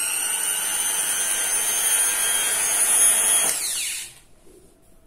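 APR mini grinder (rotary tool) with its flexible shaft attached, running at speed with a high-pitched whine; about three and a half seconds in it is switched off and the whine falls in pitch as the motor spins down, gone by about four seconds.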